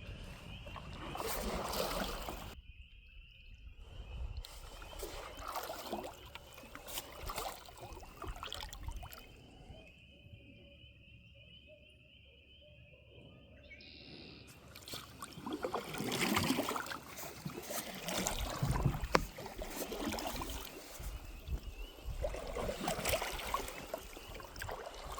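Canoe paddles stroking through pond water, splashing and dripping in uneven swells every few seconds.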